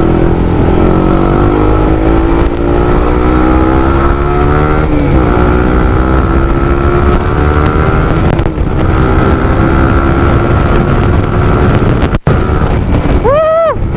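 Honda CBR150R's single-cylinder engine through a Yoshimura Alpha carbon full-system exhaust with the decibel killer fitted, pulling hard on the road. The note climbs steadily, drops at a gear change about five seconds in, then climbs again.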